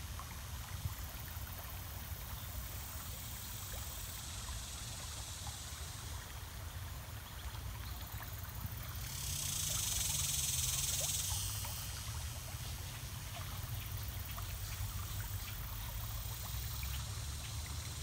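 Shallow creek water running and trickling over rocks, a steady rush with small splashy ticks, which swells louder for a couple of seconds about nine seconds in.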